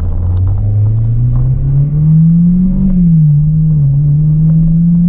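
Acura RSX's K20 four-cylinder engine running, its note climbing over the first few seconds, dipping a little, then holding steady.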